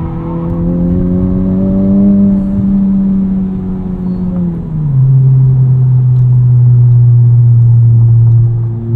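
The modified 2021 Honda Civic Type R's turbocharged 2.0-litre four-cylinder, breathing through an Invidia exhaust and Takeda intake, heard from inside the cabin. Its pitch climbs for about two seconds under acceleration and eases a little. About four and a half seconds in it drops sharply as the six-speed manual is upshifted, then the engine pulls on steady and louder in the higher gear.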